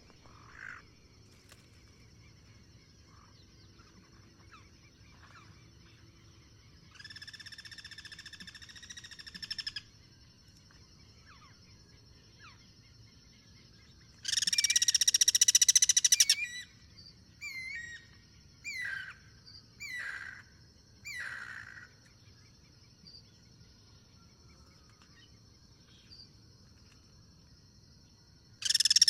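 Guira cuckoos calling to each other: a faint, distant call, then a loud harsh rattling call about halfway through, followed by five short descending whistled notes, and another loud call beginning near the end. A thin steady high whine runs underneath.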